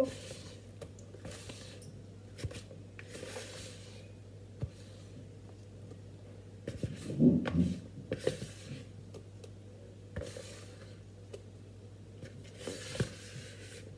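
Spatula scraping cake batter out of a glass mixing bowl in separate short strokes, with a few soft knocks, the loudest about halfway through.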